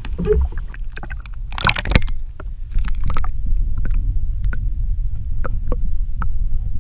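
Water splashing a few times in the first three seconds, then the muffled low rumble of a submerged camera's underwater sound, with scattered faint clicks and taps.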